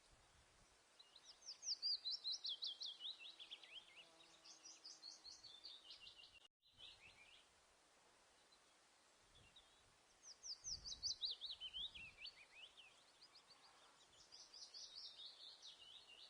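A songbird singing two bouts of rapid, high chirping notes, each bout about six seconds long, with the notes stepping down in pitch through each phrase. The audio drops out for a moment about six and a half seconds in.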